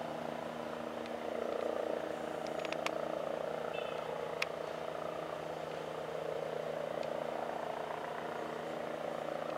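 Distant Agusta A109E twin-turbine helicopter on its landing approach: a steady hum of engines and rotor. A couple of faint clicks come through about three and four and a half seconds in.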